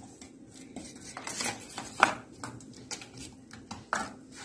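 Metal spoon stirring thick idli batter in a stainless steel bowl, scraping and clinking against the bowl's sides, with sharper clinks about two seconds in and near the end.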